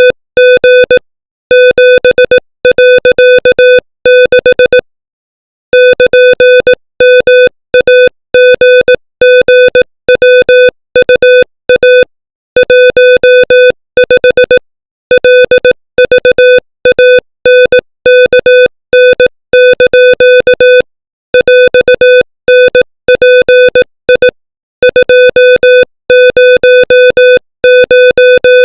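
Morse code sent at 25 words per minute as an electronic tone of one steady pitch, keyed into rapid short and long beeps. The beeps come in letter groups, with longer silent gaps between words.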